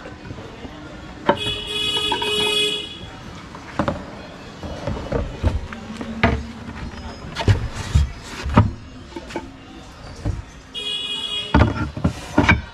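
Wooden table legs and a white laminated board knocking and clattering as a makeshift table is taken apart and laid in a car boot. A vehicle horn honks twice, the first honk about a second and a half long and the second shorter, near the end.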